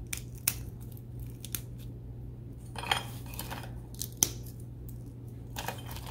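Pieces of hard toffee-and-chocolate pretzel bark (Christmas crack) snapped apart by hand: a scattering of faint, sharp cracks and crunches, the loudest about four seconds in. The crisp snap shows the toffee has set hard and the pretzel crisps have kept their crunch.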